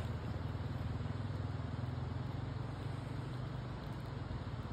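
An engine running steadily, a low even drone with a fine regular pulse.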